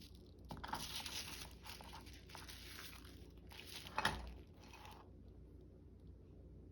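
Faint rustling and crinkling of paper being handled, with a soft knock about four seconds in.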